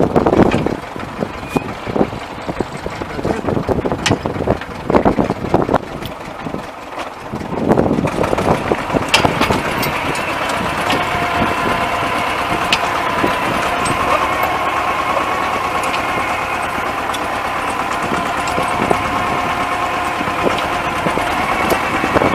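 The T-25 tractor's two-cylinder air-cooled diesel engine, just reassembled after repair, runs in irregular bursts at first. About eight seconds in it settles into a steady idle.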